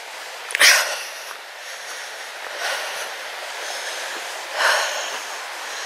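A walker breathing close to the microphone, three breaths about two seconds apart, over the steady rush of a small stream running beside the path.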